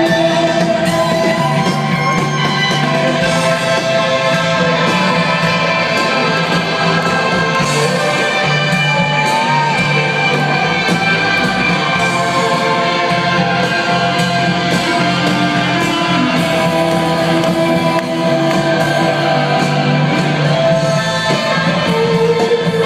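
Live rock band playing loud, recorded from within the audience: held electric-guitar notes over bass and drums, with a bent note about nine seconds in, and singing.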